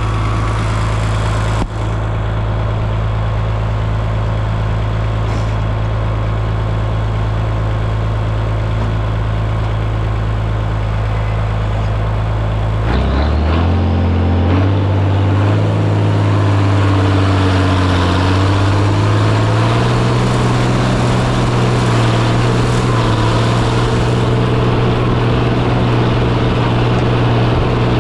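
Oliver 1555 tractor engine running steadily under the operator's seat, with a short knock about two seconds in. About halfway through, the engine note steps up and climbs over several seconds, then holds at a higher, slightly louder steady speed.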